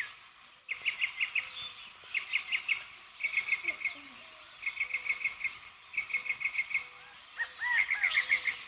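Birds chirping: groups of four to six quick, high chirps repeat about once a second over a steady background of birdsong, with a few looping call notes near the end.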